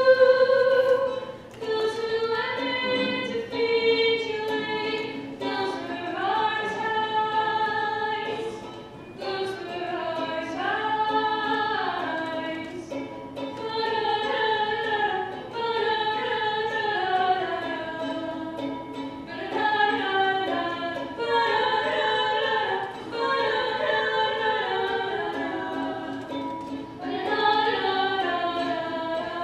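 A female voice singing a slow song in sustained phrases, accompanied by a ukulele.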